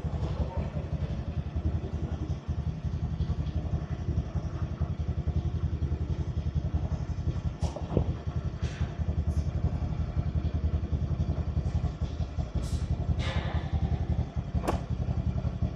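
Motorcycle running along the road, a steady low rumble throughout with a few sharp clicks.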